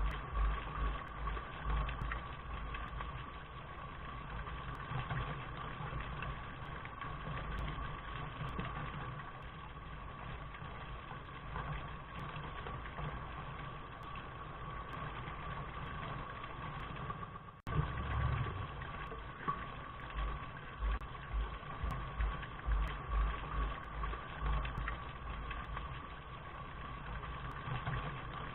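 Steady rain hiss with a low, uneven rumble underneath. The sound drops out for an instant about 18 seconds in, then carries on.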